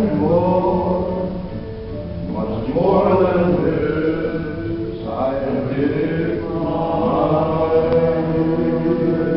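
Amplified singing with accompaniment: a song sung in long held notes, a new phrase beginning every two seconds or so.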